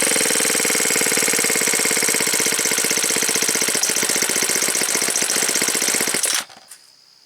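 Ryobi S430 string trimmer's small four-cycle engine running, settling toward a slow idle with its firing pulses getting slower and more distinct. It stops abruptly about six seconds in.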